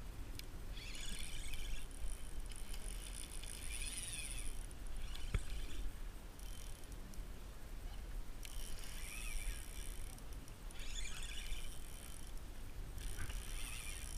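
Fishing reel being cranked in spells of a second or two with short pauses, whirring, as a hooked fish is reeled in. A low rumble of wind on the microphone lies underneath, and there is a single sharp click about five seconds in.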